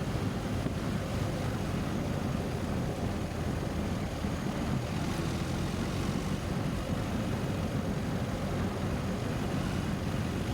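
BMW R 1250 GS boxer-twin engine running steadily under way, heard together with wind rushing over a helmet microphone.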